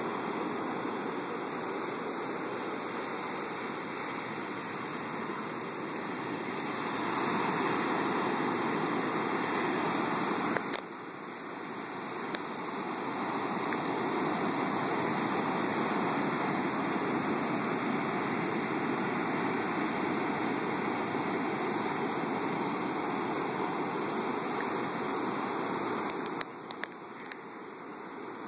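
Heavy surf from a hurricane's storm surge breaking and washing up a sandy beach: a steady rush of waves that swells louder for a few seconds about a quarter of the way in. A sharp click a little over a third of the way in and a few small clicks near the end.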